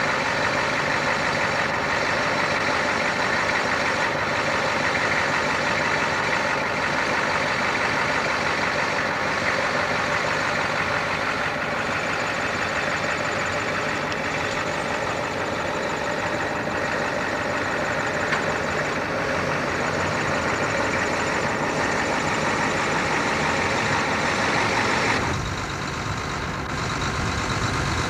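Steady engine and road noise from a vehicle being driven. About 25 seconds in the sound changes abruptly: the higher part drops away and it gets a little quieter.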